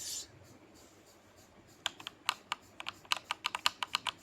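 Typing on an Amazon Basics Pro mechanical keyboard with red linear switches: a quick run of key clicks, about eight a second, starting a little under two seconds in.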